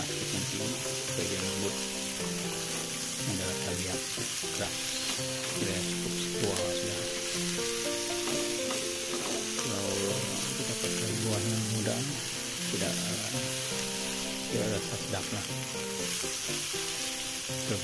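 Sliced jering (djenkol) beans sizzling as they stir-fry in oil in a non-stick wok, with a silicone spatula repeatedly scraping and tossing them.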